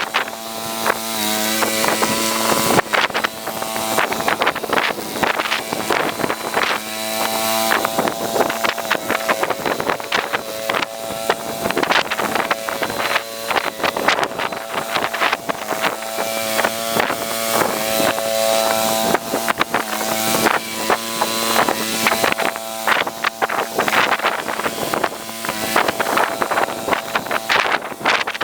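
Small garden tractor engine running steadily, with wind buffeting the microphone.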